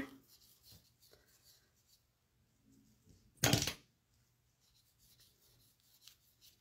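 A single short noisy burst about three and a half seconds in, lasting about half a second, over faint handling rustles and a low steady hum.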